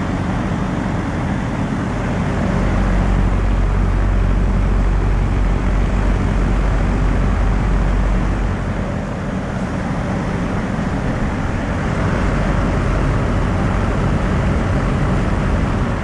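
Bosch inverter ducted split heat pump outdoor unit running in heat mode: the steady rush of its fan over a low, even hum. The sound grows louder for several seconds in the first half.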